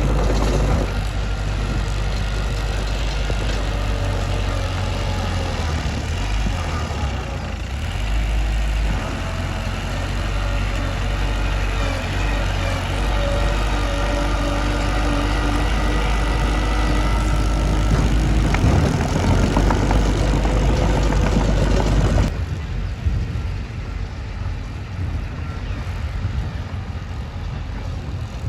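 A Mitsubishi bulldozer's diesel engine runs steadily as the machine works. About 22 seconds in, the sound turns abruptly duller.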